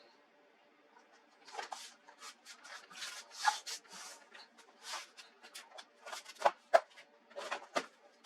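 Hands handling the plastic and metal parts of a laptop: irregular clicks, taps and short rubbing scrapes, with a few sharper clicks about halfway through and again near the end.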